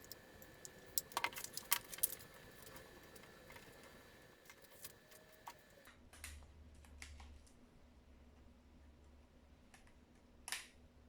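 A scatter of small, sharp clicks and taps, with a quick run of them about a second in and one louder click near the end. A faint low hum comes in about halfway through.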